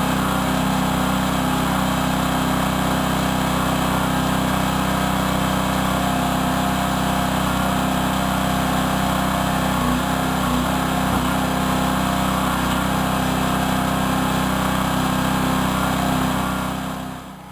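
Small engine of a towable backhoe running at a steady speed, powering the hydraulics; it dips out abruptly at the very end.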